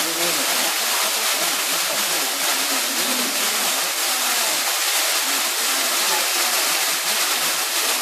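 Waterfall splashing steadily as a thin column of water drops through a hole in a rock overhang into a shallow pool. It makes an even, unbroken hiss. Faint voices of people chatting sit underneath.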